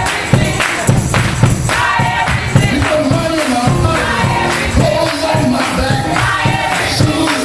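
Gospel mass choir singing with live band accompaniment, a tambourine and drums keeping a steady beat.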